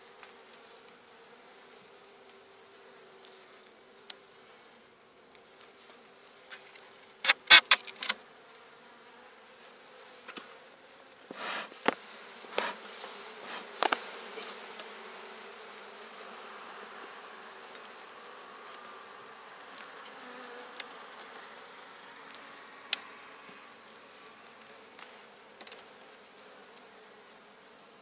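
Honeybees humming steadily over an opened hive. A quick cluster of sharp wooden clicks and knocks comes about seven to eight seconds in, from the hive tool working against the frames, followed a few seconds later by a brief hiss and more knocks, and a few single clicks after that.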